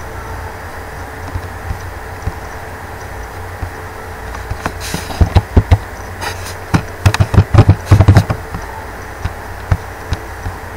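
Computer keyboard keys and mouse buttons clicking in quick clusters from about halfway through, as a short word is typed, over a steady low hum.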